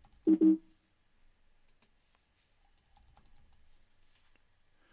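Light keystrokes on a computer keyboard as a password is typed: faint, scattered clicks through the middle. Just after the start comes a brief, louder, low-pitched double sound, the loudest thing heard.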